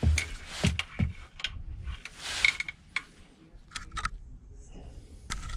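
Hand ratchet with a long 5 mm Allen bit clicking in short strokes as it loosens an oil pan bolt: a few quick clicks, then sparser ones, with a brief rustle about two seconds in.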